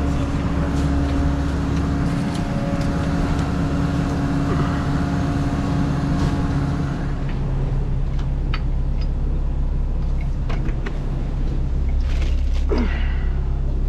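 A motor vehicle or machine engine running steadily with a low hum; a higher steady tone in it drops out about halfway through, and a few light clicks and knocks sound over it.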